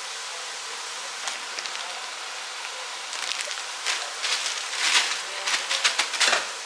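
Vegetables sizzling steadily in a frying pan. From about three seconds in, a plastic bag rustles and crinkles in a run of sharp bursts as its contents are tipped into the pan.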